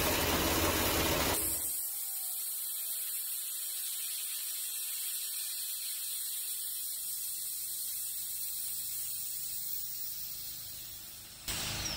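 Compressed air hissing out of the Milton filter's open drain valve as it purges condensed water into a cup. The hiss is strong for about the first second and a half, then settles to a steady thin hiss that fades a little near the end.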